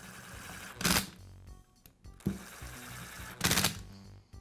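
A powered screwdriver runs in two short bursts, about a second in and again about three and a half seconds in, driving the screws that hold the rear handle half onto a Makita angle grinder's plastic housing. Background music plays underneath.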